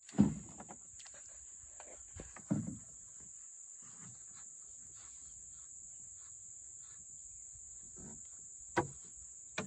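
Steady high-pitched insect chorus. It is broken by a few dull knocks, the loudest right at the start and another about two and a half seconds in, and by two sharp clicks near the end.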